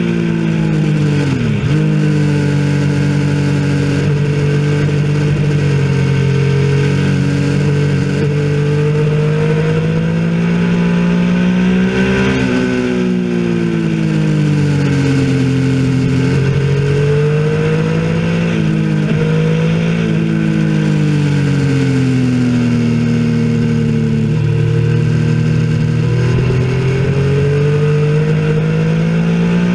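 Motorcycle engine at full speed on a race track, its note repeatedly climbing and falling as the rider accelerates, brakes and changes gear. It drops sharply about a second and a half in as the bike brakes for a corner, then climbs again. Later there are sudden dips from downshifts.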